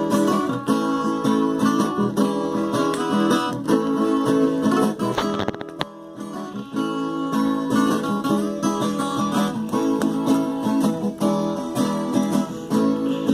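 Viola caipira played in a cateretê rhythm: a quick plucked melody over rhythmic strumming, with no singing, briefly softer about six seconds in.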